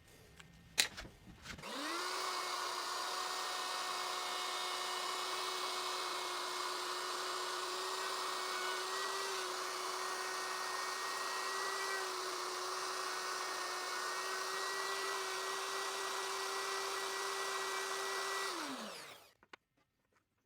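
Handheld electric router spinning up about two seconds in, running steadily with a high whine, then winding down to a stop near the end.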